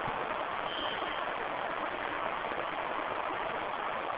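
Steady hiss of background noise with no speech, even and unchanging throughout.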